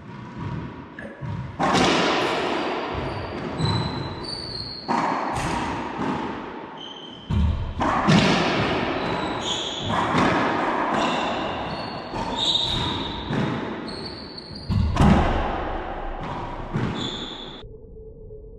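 Racquetball rally: the ball cracking off rackets and the court walls again and again, each hit echoing loudly in the enclosed court, with sneakers squeaking on the hardwood floor between hits. The sound cuts off near the end, leaving a faint steady hum.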